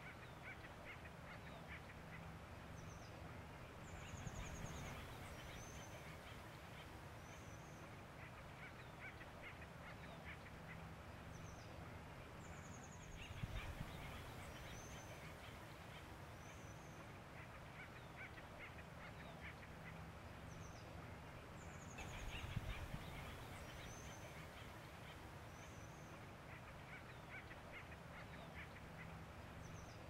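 Acorn woodpeckers calling: faint, raucous repeated calls mixed with short high chirps. The calling swells in louder bouts about every nine seconds.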